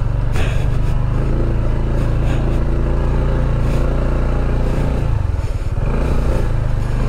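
Honda ADV 160 scooter's single-cylinder engine running steadily, easing off about five seconds in and picking up again near the end, with a knock near the start.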